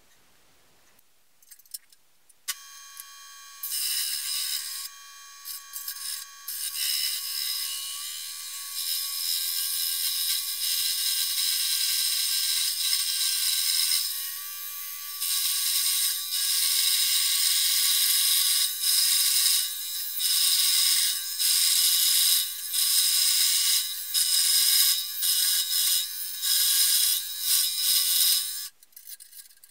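Scroll saw running and its blade cutting through sheet aluminium: a steady, high-pitched rapid buzz that starts about two seconds in, swells and dips again and again as the cut goes on, and stops shortly before the end.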